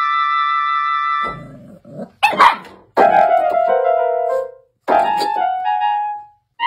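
Kawai electronic keyboard sounding random held notes and clusters as a dog presses the keys with its nose and paws, in three separate groups of notes. A short loud noise cuts in about two and a half seconds in.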